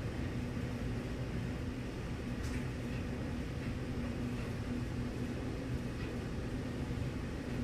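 Steady mechanical hum with a constant low drone and even background hiss, unchanging throughout, like a household appliance or fan running.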